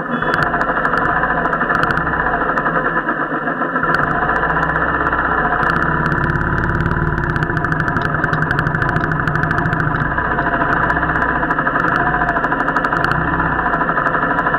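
Royal Enfield motorcycle engine running steadily under way, its low end growing fuller about four seconds in, with scattered clicks.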